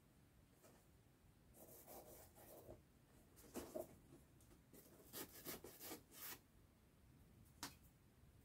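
Faint scratchy strokes of a glue brush on foam, in a few short spells with pauses between, and a single light tick near the end.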